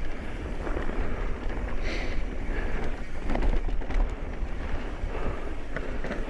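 Mountain bike riding down a dirt singletrack, heard from a camera on the bike or rider: wind buffeting the microphone over a steady rumble of tyres on dirt, with light rattles and ticks from the bike over roots.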